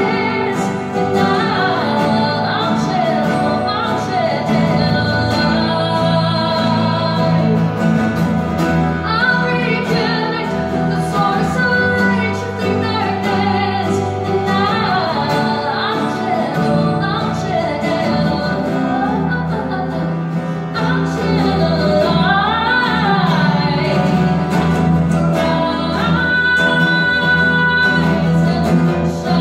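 A woman singing to the accompaniment of two acoustic guitars in a live performance.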